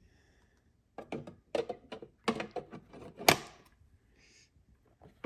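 Clicks and clatter of a 3.5-inch hard drive being handled against a metal drive tray, a quick run of knocks with one sharp knock about three seconds in.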